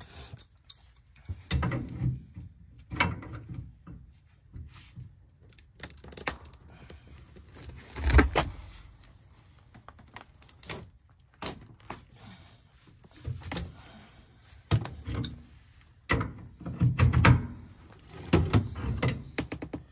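Hand tools and metal parts clanking and knocking irregularly as a furnace gas valve is worked loose, with a heavier thunk about eight seconds in and a cluster of knocks near the end.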